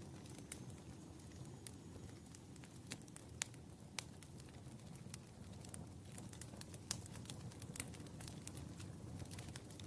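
Wood fire burning in a fireplace: irregular sharp crackles and pops over a low, steady rumble of flames. The loudest pops come about three and a half and seven seconds in.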